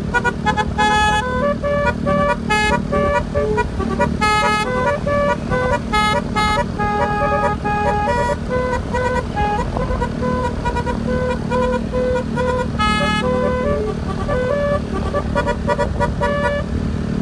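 Basuri telolet horn playing a fast melody of short, stepped horn notes without a break, over a steady low drone.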